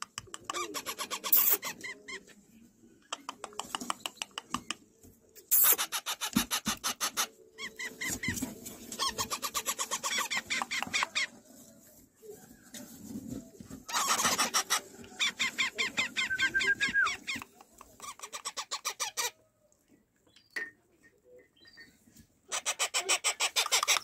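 Month-old parrot chicks calling in repeated bursts of rapid, rasping pulses, with short pauses between bursts and a longer pause about four-fifths of the way through.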